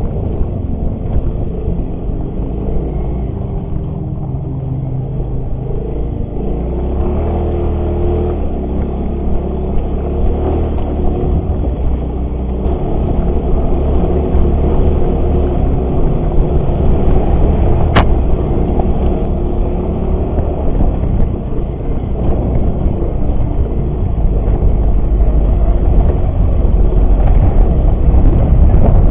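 Yamaha X-Ride 125 scooter's single-cylinder engine running under way on a dirt trail, its note rising and falling with the throttle over a low rumble and growing louder toward the end. One sharp click about two-thirds of the way through.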